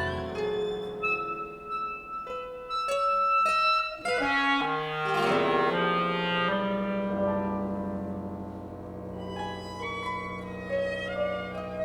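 Contemporary chamber music for clarinet, violin, double bass, guitar and piano. Held notes are cut by several sharp struck attacks in the first few seconds, then long low notes sound underneath sustained higher lines.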